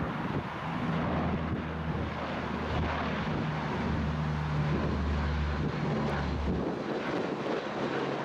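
Lockheed C-130H Hercules flying past low on its four Allison T56 turboprops: a steady rushing engine noise over a deep propeller drone, which drops away about six and a half seconds in.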